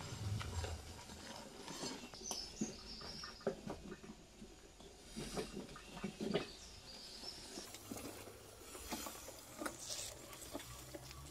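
Crunching and rustling of footsteps and tyres rolling over dry leaves and dirt as a derelict Demak DTM 150 motorcycle is pushed along with its engine off: an uneven run of small crackles and clicks. A few short high bird chirps come through, about two seconds in and again near seven seconds.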